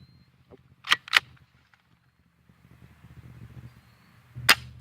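Sharp snaps of a spring-powered BB gun being fired and cocked: two snaps close together about a second in, and one single loud snap near the end.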